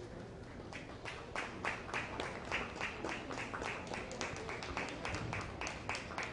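Spectators clapping together in a steady rhythm, about three claps a second, starting about a second in.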